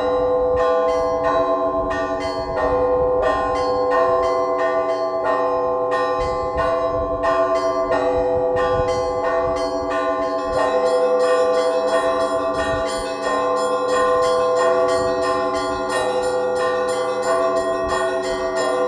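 Russian Orthodox church bells rung by hand in a peal for matins. Small bells are struck about three times a second in a steady pattern over the sustained ringing of larger bells.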